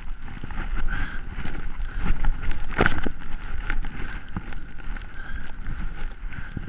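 Wind rushing over a body-mounted action camera's microphone as a skier runs through deep powder, with skis and clothing brushing through the snow in many small scuffs and clicks. A sharper knock about three seconds in.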